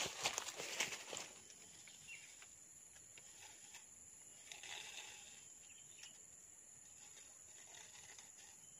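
Rustling and clicking of a stick and hands working at the mouth of a hole in leaf litter, loudest in the first second and again softly about halfway through, over a steady high-pitched insect drone.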